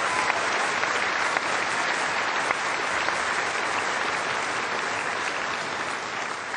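Large audience applauding, a steady dense clapping that eases off near the end.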